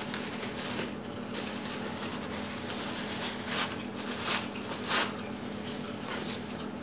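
Handling noise from a plastic camera lens hood being unpacked and turned in the hands: three short rustles about midway, over a steady low hum.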